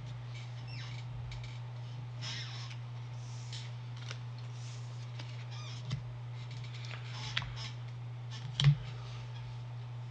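A steady low hum under scattered rustling and a few sharp clicks from handling Pokémon cards and foil booster-pack wrappers, the loudest click about eight and a half seconds in.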